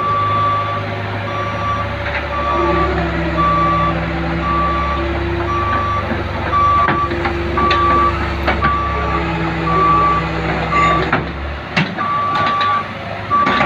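Cat 304E mini excavator's travel alarm beeping steadily while its diesel engine runs under load as it crawls up onto a truck's loading ramps, the engine note strengthening a couple of seconds in. A few sharp knocks near the end.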